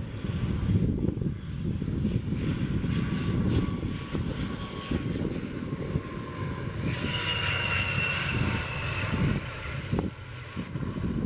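ATR 72-600's twin Pratt & Whitney PW127 turboprops and propellers droning on landing approach, with a whine that falls slightly in pitch and a high whine that is loudest from about seven seconds in as the aircraft passes low over the runway. Heavy wind rumble on the microphone underneath.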